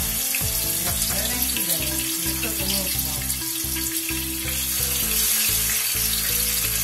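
Seasoned chicken thighs sizzling steadily as they brown in a pot on the stove.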